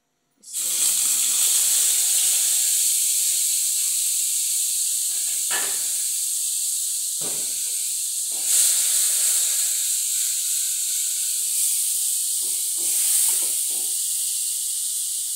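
Loud steady sizzling hiss from a very hot kadai on a gas burner, starting suddenly about half a second in as a dollop of fat hits the empty pan, with a few knocks of the spatula against the pan.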